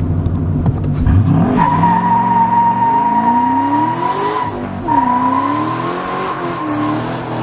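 Turbocharged 4.6-litre three-valve V8 of an S197 Ford Mustang GT doing a burnout. The revs jump about a second in and the rear tyres start a steady squeal. The revs climb in first gear, dip with a brief break in the squeal as he shifts into second at about the halfway mark, then climb again with the tyres squealing until they ease near the end.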